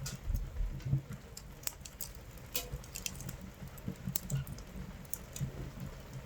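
Wood fire crackling in a camping stove, with scattered sharp pops, over rain pattering on the tent.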